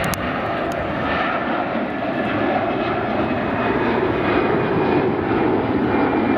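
Airbus A380's four jet engines running at taxi power: a steady rushing engine noise with a faint whine.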